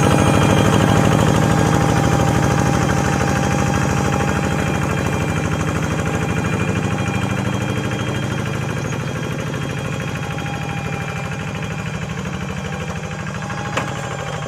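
Walk-behind hand tractor's engine running steadily under load while working a flooded rice field, with a rapid even firing beat. It slowly grows fainter as it moves away, and there is a single sharp click near the end.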